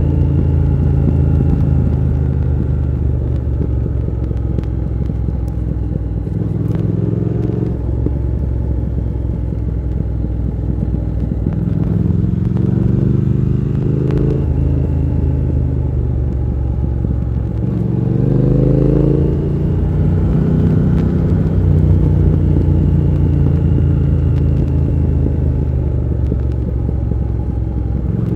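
Triumph Thruxton R 1200's parallel-twin engine running under way, heard from the rider's seat. Its note climbs in pitch three times as the bike accelerates, at about a quarter, half and two thirds of the way through, and drops back after each, with a steady lower drone between.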